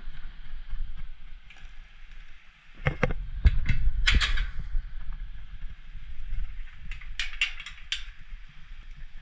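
Steel mesh fence gate being swung and latched, its metal frame and latch clanking: a cluster of sharp metallic clanks about three seconds in and a quick run of about five clicks near the end as the latch is shut.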